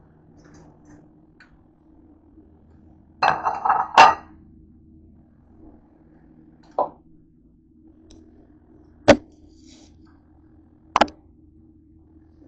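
Dishes and kitchenware being handled: a quick clatter of clinks and knocks about three seconds in, then single sharp knocks, three more spaced a couple of seconds apart, over a faint low steady hum.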